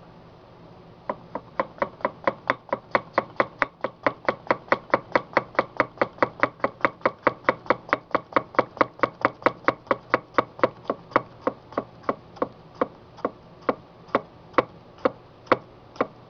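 Shun Premier 8-inch chef's knife slicing a tomato on a wooden cutting board. The blade knocks on the board in a quick, even run of about three to four strokes a second. The run starts about a second in and slows to about two a second near the end.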